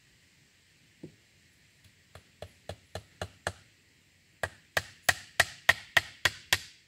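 Hammer driving a nail into a wooden board: a single knock about a second in, then a run of about six lighter taps, a pause of about a second, and about eight harder, louder blows in a steady rhythm.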